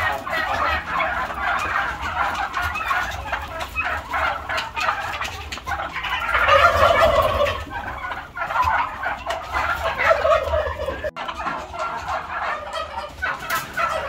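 A large flock of domestic turkeys calling over one another in a dense, continuous chatter, swelling loudest about halfway through.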